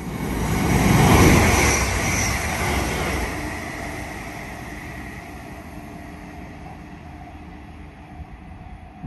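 A passing train running on away from the platform: its rumble and rail noise are loudest about a second in and then fade steadily as it recedes.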